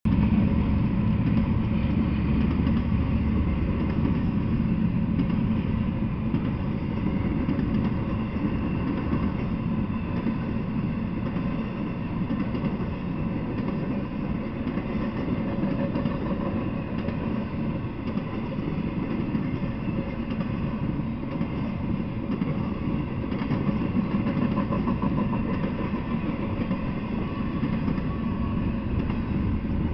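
Intermodal freight train's double-stack container cars rolling past, a steady noise of steel wheels on the rails.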